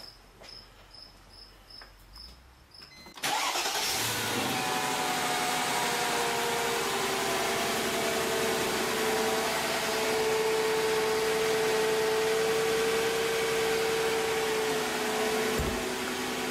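Faint insect chirping, then about three seconds in the 1999 Mercedes-Benz SL500's 5.0-litre V8 is started and catches. It settles into a steady idle, its first run on fresh oil after an oil and filter change. A short low thump comes near the end.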